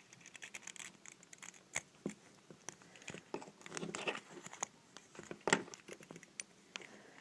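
Small metal clicks and scrapes of a Zippo lighter insert being handled as its flint spring screw is threaded back in by hand, with a few sharper ticks, the sharpest about five and a half seconds in.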